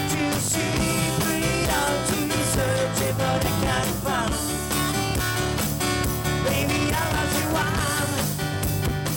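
Live band playing upbeat rock and roll through a PA: strummed acoustic guitar, electric bass and keyboards, with a singer's voice over them.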